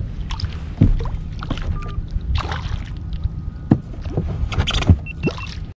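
A hooked javelin grunter splashing at the surface beside a fishing kayak during the fight, with a few sharp knocks against the kayak and a steady low rumble underneath.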